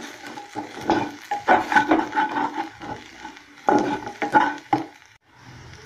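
Spatula stirring and scraping a frying shallot and spice masala around a metal kadai, in three short bursts of strokes with a light sizzle beneath. About five seconds in it cuts off to a steady low hum.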